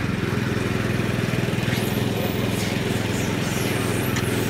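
A small engine running steadily at an unchanging speed.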